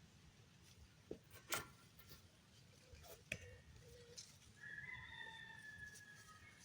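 Quiet farm ambience with a few sharp clicks, then a faint, drawn-out bird call lasting about two seconds near the end.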